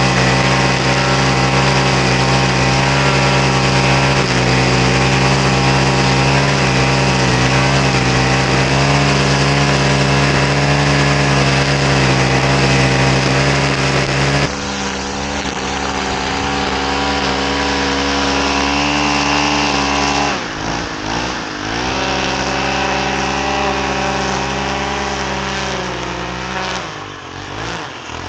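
Small gas engine of lawn equipment running steadily. About halfway through the sound cuts abruptly to a slightly quieter stretch of the same kind of engine, whose tone wavers and sweeps twice near the end.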